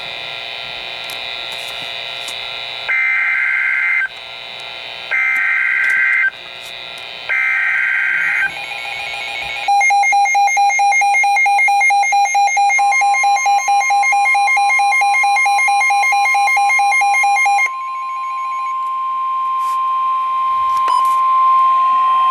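Emergency Alert System broadcast over weather radio: radio hiss, then three short buzzy bursts of SAME digital header data. A loud pulsing alarm tone follows, and a steady high warning alarm tone joins it. The pulsing stops after about eight seconds, and the steady tone continues.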